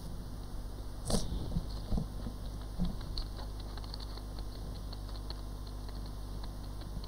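Light clicks and taps of objects being handled, with a sharp knock about a second in and a duller one just after, over a steady low electrical hum.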